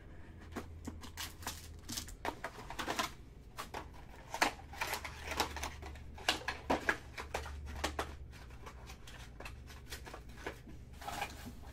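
Trading cards and their cardboard box being handled by hand: a quick, irregular run of light clicks, taps and rustles as the box is opened and cards slide and knock against each other, over a low steady hum.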